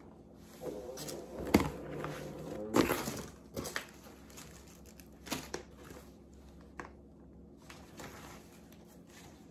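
Paper and plastic packaging rustling and crinkling as items are handled and pulled from a gift box, with a few sharper crackles in the first three seconds and quieter rustling after.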